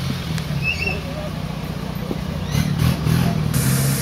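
Engine of a modified Suzuki Samurai off-road special running as it crawls along a rough track, the throttle worked unevenly.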